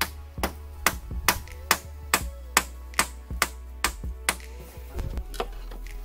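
Hammer striking a nail into pallet wood in steady blows, about two a second, pausing a little after four seconds in. Background music plays underneath.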